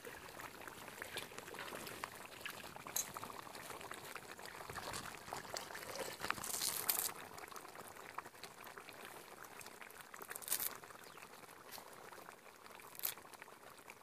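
Goat head gravy bubbling at a boil in a two-handled pan, a steady thick bubbling with a few louder pops.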